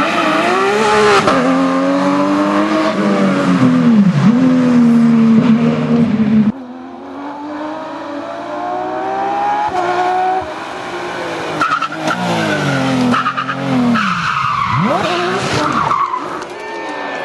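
Porsche 911 GT3 rally car's flat-six engine revving hard, its pitch climbing and dropping through gear changes. It cuts abruptly, about six and a half seconds in, to a quieter stretch of the same engine sound rising and falling.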